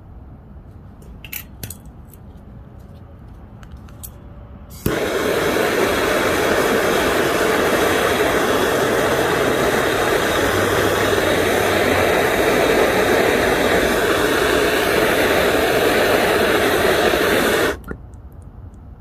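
Gas soldering torch flame running with a loud, steady hiss, switched on suddenly about five seconds in and cut off abruptly about thirteen seconds later while heating a copper pipe joint for soldering. A few faint clicks come before it.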